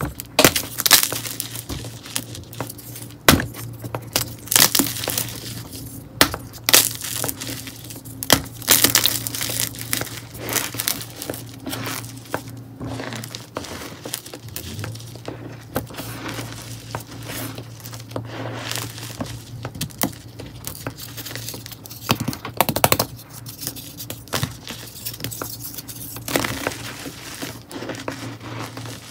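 Hands crushing and crumbling dry red clay chunks into powder: irregular sharp crunches and snaps with gritty crumbling between them. A steady low hum runs underneath.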